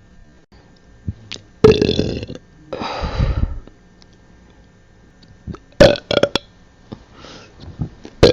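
A person burping loudly several times with short gaps between. Two long burps come in the first few seconds, then a choppy, pulsing burp past the middle, and shorter ones near the end.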